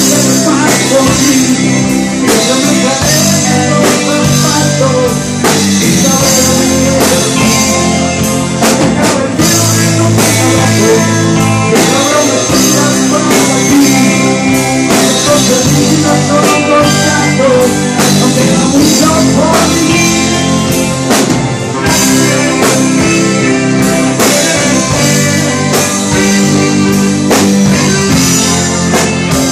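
Live pop-rock band playing: two electric guitars and a drum kit keep a steady beat under a sung lead vocal, with a saxophone playing along.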